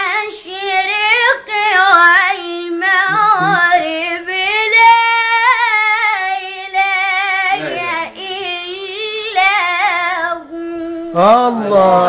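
A boy reciting the Quran in a melodic tajweed style. His high child's voice draws out long, ornamented notes with short breaths between phrases. A lower voice cuts in near the end.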